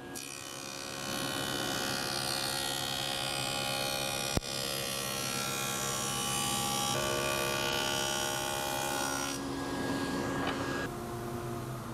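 SawStop 3 HP cabinet table saw running with a stacked dado blade, a steady machine whine, while a board is fed through to cut a rabbet. The tone shifts abruptly a few times, with a sharp click about four seconds in.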